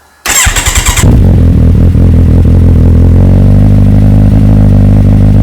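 Motorcycle engine starting: a short burst of starter cranking, then the engine catches about a second in and settles into a steady, loud idle.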